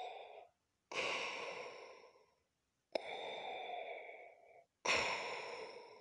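Darth Vader's mechanical respirator breathing: slow, noisy in-and-out breaths, three full ones after the tail of one at the start, each one to two seconds long with short silent gaps between.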